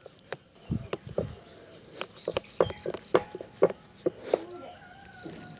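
Kitchen knife tapping and scraping against a steel tray as set almond burfi is cut into small squares: a string of irregular sharp clicks, with a few low thumps about a second in. Crickets chirr steadily in the background.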